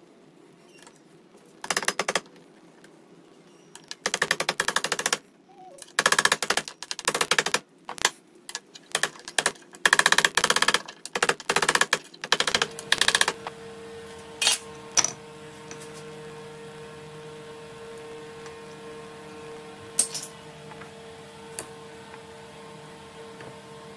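A small hammer tapping on metal pins and a steel tang in rapid bursts of clicks, each burst about a second long, with short gaps between. From about halfway through a steady hum with a held tone takes over, broken by a few single clicks.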